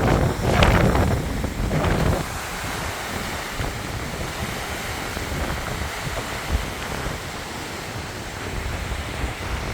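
Hurricane-force wind, gusting hard against the microphone with heavy low buffeting for about the first two seconds, then easing to a steady rushing hiss until buffeting returns at the very end.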